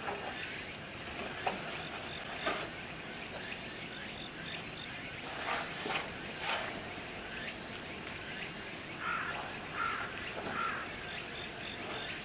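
Outdoor animal-enclosure ambience: a steady high hum under scattered short knocks, with three short calls close together near the end.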